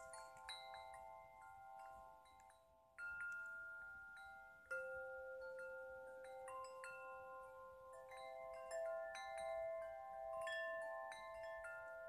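Schlagwerk aluminium tube wind chime, about 110 cm long and tuned to C major, struck again and again by its clapper, moved by hand. Each strike starts a clear note, and the long overlapping ringing tones build into chords.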